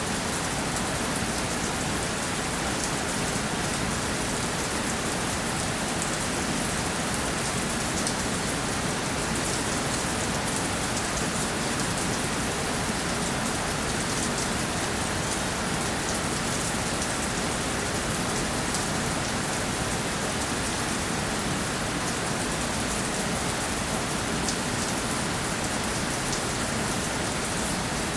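Steady rainfall, with fine drops pattering on a surface, even and unbroken.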